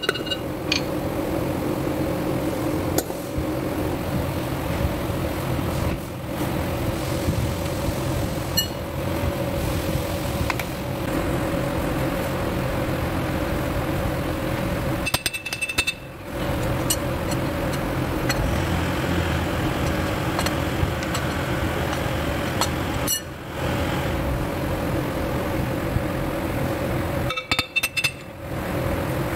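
A steady mechanical drone, with sharp metallic taps now and then from a ball-peen hammer striking a brake drum's hub and wheel bearing. The drone drops out briefly a few times.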